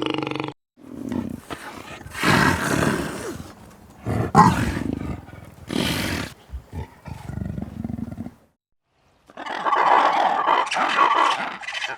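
A large animal's loud, rough calls, several in a row with short gaps, stopping about eight seconds in; after a second of silence a different animal sound begins.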